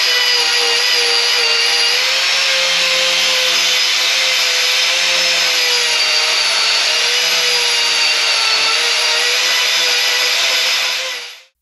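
Corded electric angle grinder with a carving disc running and grinding into wood, a steady high whine whose pitch dips slightly now and then as it bites. It stops abruptly near the end.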